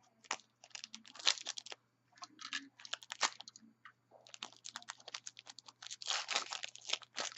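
Trading cards and their foil packs being handled: a quick run of dry clicks, scrapes and crinkles as cards are flicked through, growing denser about halfway through.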